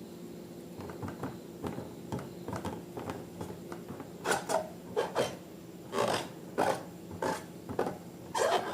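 Slime being worked by hand: a run of short wet scraping, squishing strokes, about two to three a second, growing louder about four seconds in.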